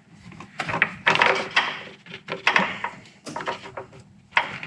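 Hands working a plastic LED headlight bulb and its wiring connectors into a pickup's headlight housing: a run of small plastic clicks and knocks with rustling between them.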